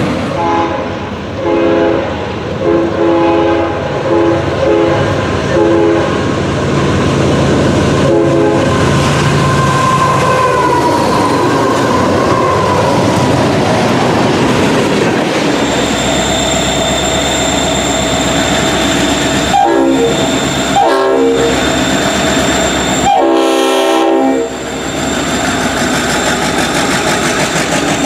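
Train horn sounding a chord in a series of short blasts, then a longer blast near the end, over steady train running noise.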